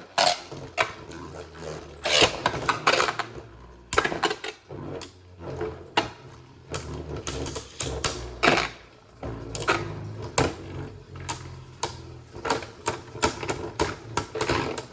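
Two Beyblade spinning tops whirring in a plastic stadium, clacking against each other in many sharp, uneven hits.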